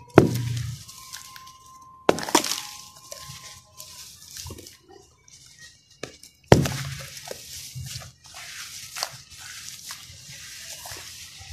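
Hands crushing and crumbling water-soaked sand-cement cakes in a tub of muddy water: wet, gritty crunching and crumbling with splashes. There are loud, sudden crunches at the start, about two seconds in and about six and a half seconds in, with smaller crackles between them.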